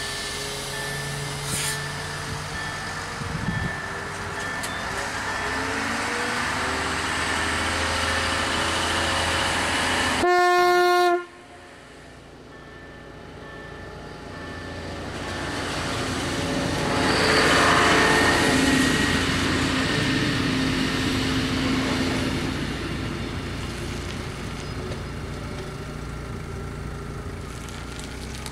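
Diesel multiple unit pulling away from the halt, its engine climbing in pitch, then one loud horn blast of about a second that ends abruptly. The train then passes the level crossing, its running noise swelling to a peak and fading away.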